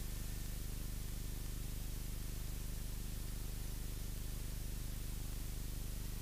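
Steady, faint hum of a Cessna 172's engine and propeller at low taxi power, picked up through the headset intercom, with constant hiss over it.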